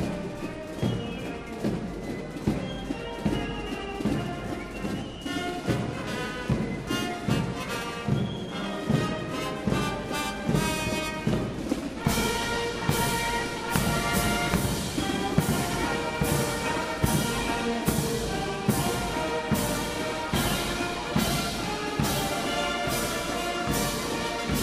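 Military brass and reed band playing a march, trumpets, trombones and clarinets over a bass drum keeping a steady beat. About halfway through the band gets louder and fuller, with a sharp percussion strike on each beat.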